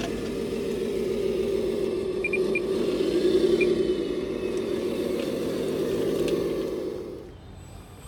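Small electric motors and gearing of radio-controlled scale construction models whirring steadily, briefly rising and falling in pitch about three seconds in, then cutting off about seven seconds in.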